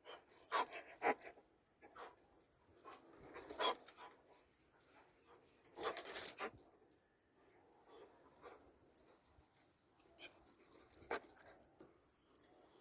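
A Doberman's faint, short sounds in a few scattered bursts, the strongest about six seconds in.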